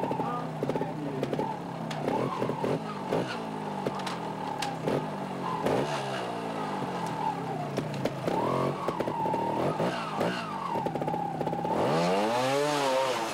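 Beta two-stroke trials motorcycle engine blipped in short bursts at low speed, its pitch jumping up and falling back again and again, with sharp knocks in between. Near the end comes one longer rev that rises and then falls away.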